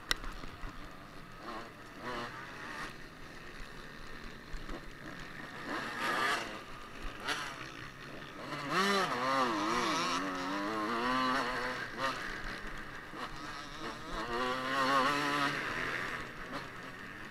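Motocross bike engine heard from the bike itself, its revs rising and falling as it accelerates and backs off around the track. The loudest climbs in pitch come about 9 and 14 seconds in.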